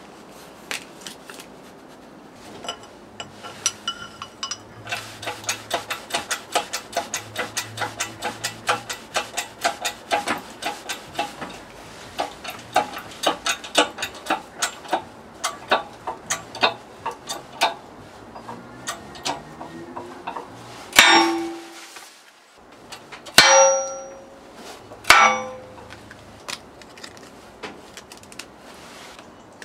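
Metal being struck on metal with a hammer: a long run of quick, light, ringing taps, about four a second. Near the end, three heavier blows ring out a second or two apart.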